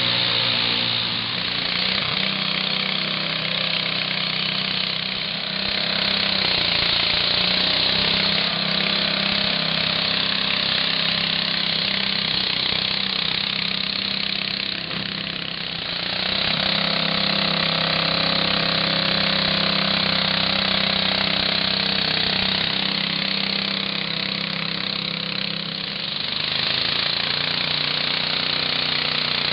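Modified garden tractor engine running hard at high revs through an open exhaust stack while pulling a weight sled. The engine note eases off briefly and picks back up a few times.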